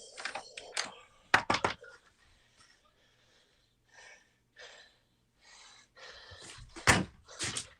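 Two sharp bangs, one about a second in and a louder-sounding one near the end, with faint rustling between them.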